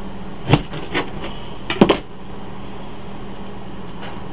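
Kitchen knife cutting through an onion and knocking on a thin plastic cutting board: a few sharp knocks in the first two seconds, the loudest a quick double knock, then only a steady low hum.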